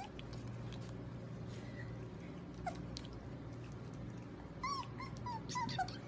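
Puppy whimpering: one short high squeak about halfway through, then a quick run of about five short squeaks near the end.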